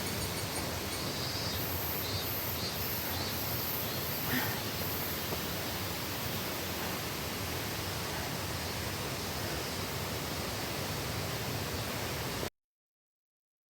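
Steady rushing of water from a waterfall, cutting off suddenly to silence near the end.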